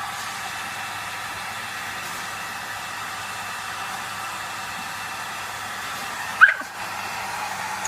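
Hair dryer running steadily, a constant hum with airy hiss. About six and a half seconds in, a dog that is afraid of the dryer gives one short, high yelp.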